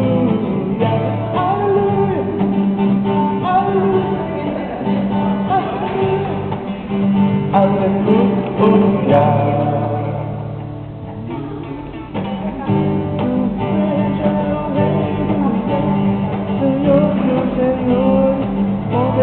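Music: a song with singing over acoustic guitar, with a dip in loudness around the middle.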